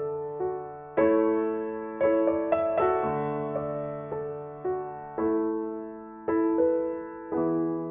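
Slow, gentle solo piano music: soft notes and chords struck about once a second, each ringing out and fading before the next.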